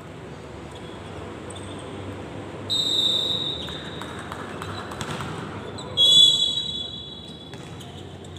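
Referee's whistle blown twice, about a second each and about three seconds apart, the second blast louder. A few ball thuds and general court noise sound between them.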